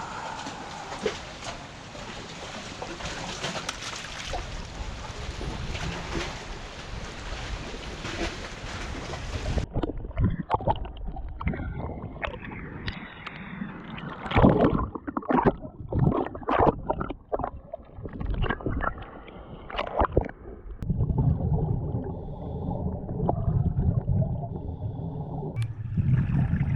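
Water splashing and gurgling around divers wading into a lake, under steady wind noise at first, with a run of sharp, loud splashes about halfway through and a steady low hum near the end.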